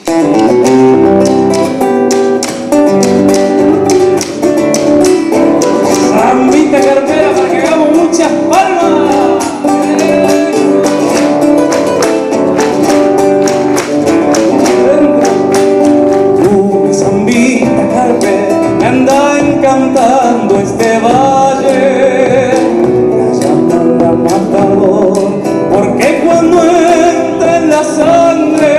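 Live band playing a zamba: nylon-string guitar with drum kit and bass guitar, a melody gliding over a steady beat.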